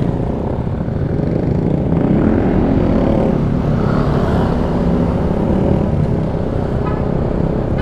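Yamaha Aerox 155 scooter's single-cylinder engine running as the scooter pulls away and picks up speed from walking pace to about 25 km/h, heard from the rider's camera.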